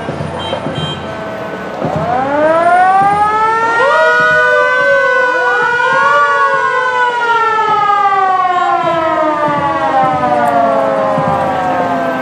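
Several sirens wailing together. About two seconds in they start, each rising quickly in pitch and then sliding slowly down, with fresh wails starting in again about four and five and a half seconds in.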